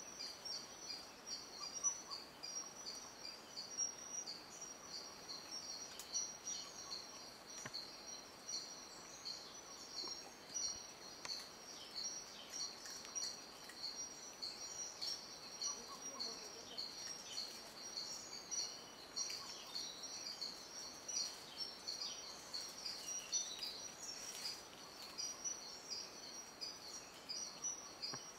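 Rainforest ambience: a steady, high-pitched pulsing chorus of insects, with scattered faint bird chirps.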